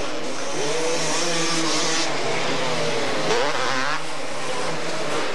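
A pack of two-stroke racing three-wheelers (ATCs) running on a dirt track, several engines revving at once with their pitches rising and falling, one revving up and back down about three seconds in.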